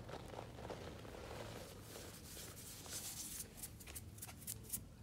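Crumbly chunks of dusty powder being broken up and rubbed between cotton-gloved hands over a powder-filled plastic tray: soft scratchy rustling with fine crackles. The crackles come thicker in the second half.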